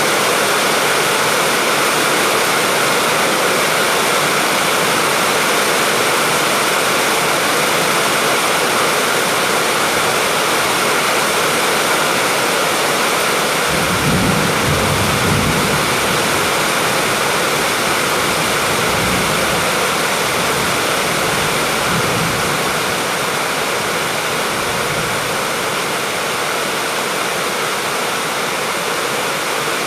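Steady heavy rain pouring down. A low roll of thunder swells about halfway through, followed by a few fainter rumbles.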